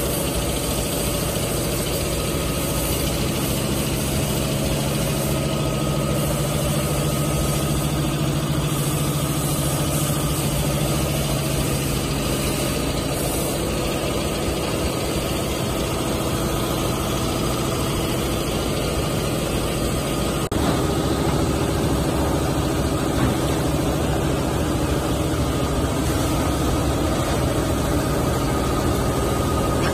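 Steady mechanical drone of workshop machinery, a low hum with a fainter high whine over even noise; it changes slightly about two-thirds of the way through.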